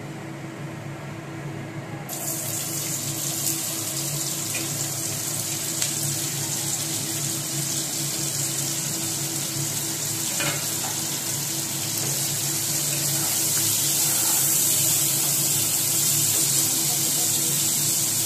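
Chopped red onions sizzling in hot oil in a black kadai. The sizzle jumps much louder about two seconds in as the onions go into the pan, with a few light spatula clicks over a steady low hum.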